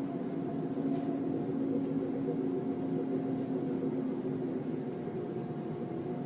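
A steady low drone made of several held tones layered over a rumbling hiss: the kind of unexplained hum posted online as a strange sound in the sky.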